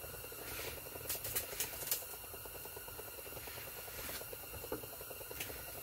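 Quiet inside an ice-fishing shelter: a steady low hum and hiss, with a handful of light, sharp clicks about a second in and one more near the end.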